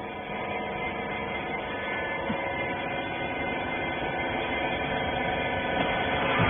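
Hydraulic cloth baler's electric motor and pump running with a steady hum, growing slightly louder.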